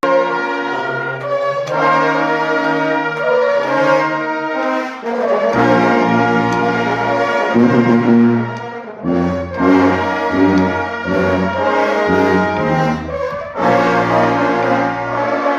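Brass music, a band of horns playing sustained chords over a low brass line.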